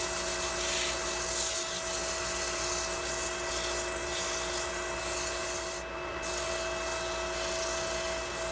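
Sandpaper held by hand rubbing against a wooden mortar spinning on a wood lathe: a steady hiss over the lathe's steady motor hum. The hiss drops out briefly about six seconds in.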